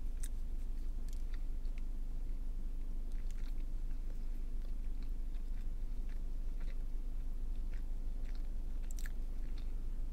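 A person chewing a mouthful of a soft, non-crispy chicken sandwich: faint wet mouth clicks scattered throughout, over a steady low hum.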